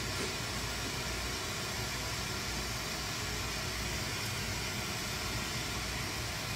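Glassworking torch flame burning with a steady, even hiss.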